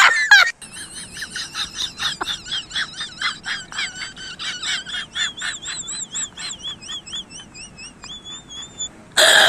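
A quick series of high, warbling chirps, about five a second, thinning out near the end into one longer, steadier call.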